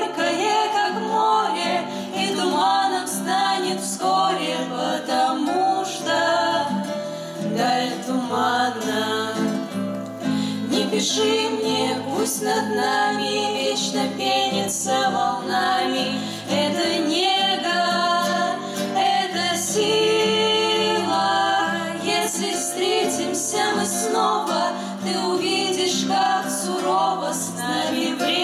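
Women's voices singing a Russian song together, accompanied by an acoustic guitar.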